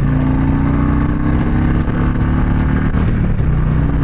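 Harley-Davidson Electra Glide's Twin Cam 103 V-twin engine on its stock mufflers, under way and pulling with a slowly rising pitch, then falling to a lower pitch about three seconds in.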